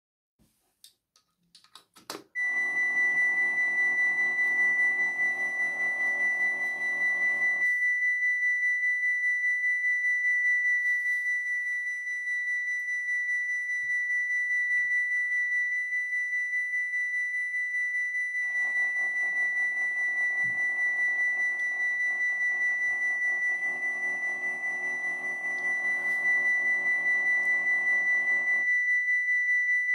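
Model Dutch level crossing's electronic bells switch on after a few clicks and ring a steady, high-pitched electronic tone. A lower mechanical buzz from the small barrier motors runs alongside it twice, for about five seconds near the start and for about ten seconds from the middle on, as the booms move.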